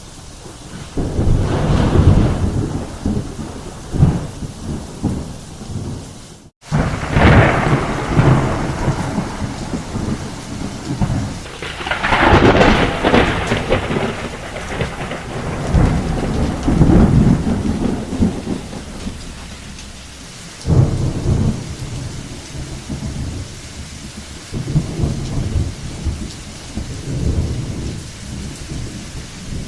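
Thunderstorm: steady heavy rain with rolling thunder, the rumbles swelling and fading every few seconds.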